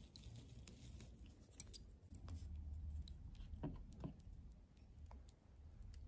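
Faint scattered clicks and crackles of eggshell being picked away from a hatching chick by fingers, with a low rumble near the middle.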